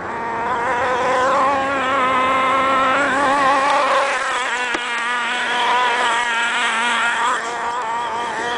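HPI MT2 nitro RC monster truck's small two-stroke glow engine revving hard, its high buzzing pitch rising and falling continuously as the throttle is worked.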